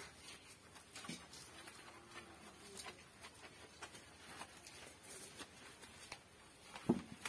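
Faint, scattered taps and rubbing from a cloth wiping down a wet motorcycle by hand, with one brief louder sound near the end.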